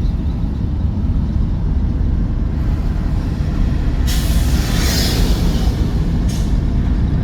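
Steady low rumble of road and engine noise inside a moving car on a highway. About four seconds in comes a loud hiss lasting under two seconds, then a shorter one.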